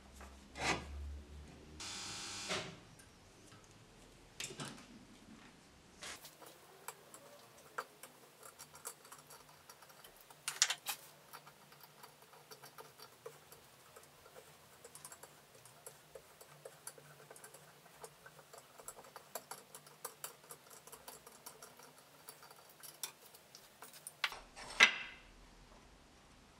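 Irregular light metallic clicks and ticks of hand tools and small steel parts being worked by hand, with a couple of louder knocks, one about ten seconds in and one near the end.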